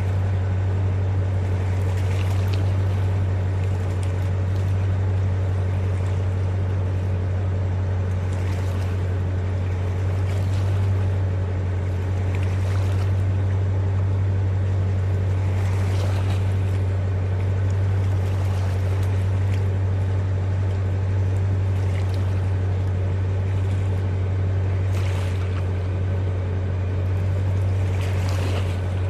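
Motorboat engine idling steadily with a low, even hum as the boat moves slowly into its slip. Water splashes and laps against the hull now and then.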